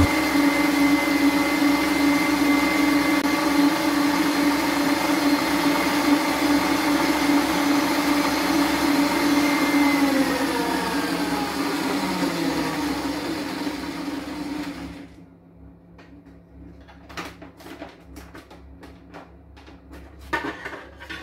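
Electric stand mixer running steadily as it beats a dense fruit cake batter. About ten seconds in it is switched off and its pitch falls as the motor winds down over a few seconds. A few light clicks and knocks follow as the mixer head and bowl are handled.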